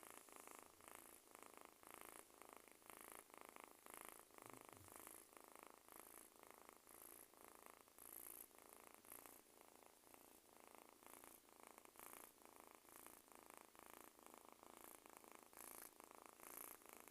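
Kitten purring faintly and continuously, pulsing in a regular rhythm.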